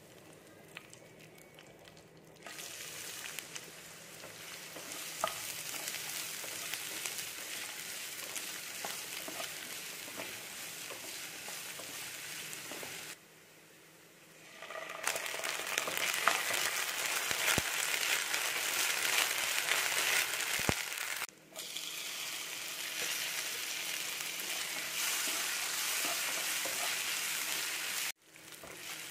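Onion, curry leaves and ginger garlic paste frying in hot oil in a nonstick pan, a steady sizzle. It starts up about two seconds in, drops out briefly about halfway, comes back louder, and cuts off just before the end.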